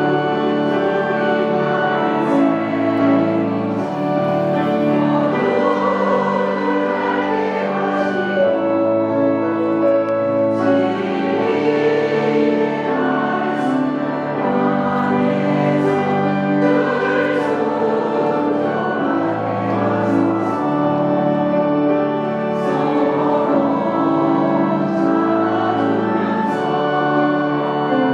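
Church choir singing a Korean gospel hymn in slow, held notes.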